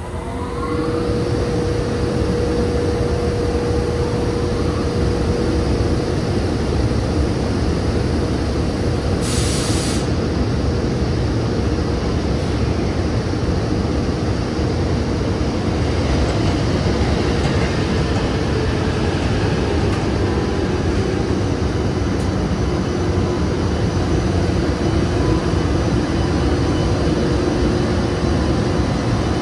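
JR Freight EH200 electric locomotive and its freight train running past: a loud, continuous rolling rumble of wheels on rail, with a steady tone that fades over the first few seconds and a brief hiss about nine seconds in.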